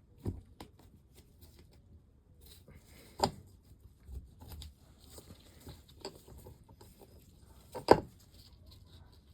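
Scattered clicks and knocks of metal engine parts and hand tools being handled on a bench. Two sharper knocks stand out, one about three seconds in and a louder one near the end.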